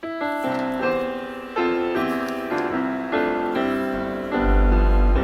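Piano or keyboard intro to a worship song: sustained chords changing every second or so, with a deep bass note coming in about four and a half seconds in.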